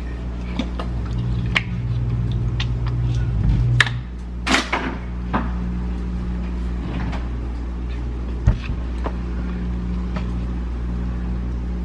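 Ketchup squeezed from a bottle onto a plate of food: a few clicks, then a short squirting burst about four and a half seconds in, over a steady low hum. Scattered light clicks of a fork on the plate follow, with a knock about two-thirds of the way through.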